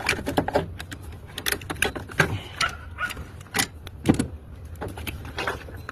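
Irregular metallic clinks and knocks, a few each second, from work on a car engine.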